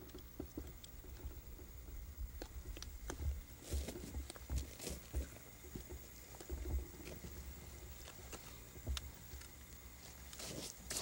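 Scattered clicks, knocks and scrapes from knife work on walrus meat, over a low uneven rumble, with a cluster of louder knocks a few seconds in.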